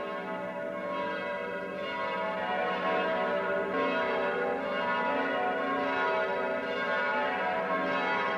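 Church bells ringing in a peal, several bells sounding and overlapping, growing a little louder over the first few seconds.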